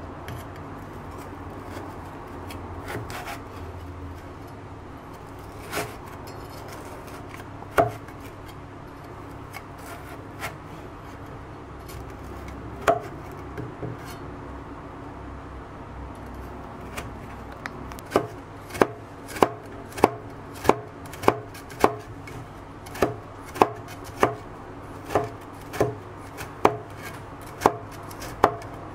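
Kitchen knife chopping candied winter melon on a plastic cutting board. A few scattered blade knocks come in the first half, then a steady run of chops at about one and a half a second through the last ten seconds.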